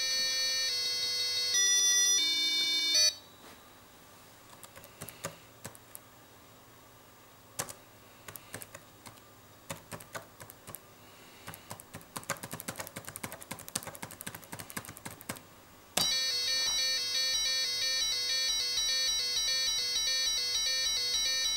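Arduino-driven piezo speaker beeping a short run of programmed notes, each held briefly and stepping in pitch, for about three seconds. Then a long stretch of computer keyboard typing as the next notes are entered, and about five seconds from the end the piezo starts a fast, looping sequence of beeping notes.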